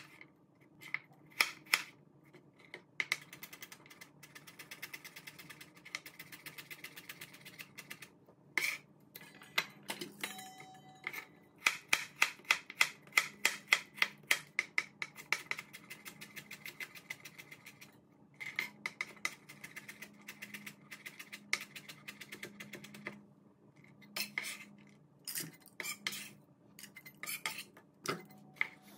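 Chef's knife chopping carrots on a plastic cutting board: runs of quick knife taps, several a second, broken by short pauses.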